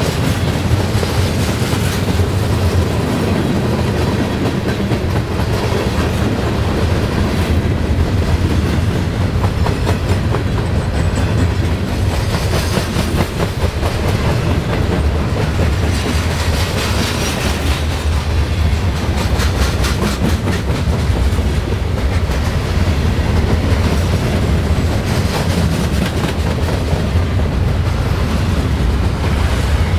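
Freight train cars, steel-coil cars and tall open-top cars, rolling past close by: a steady rumble of wheels on rail with rapid clickety-clack of wheels crossing rail joints.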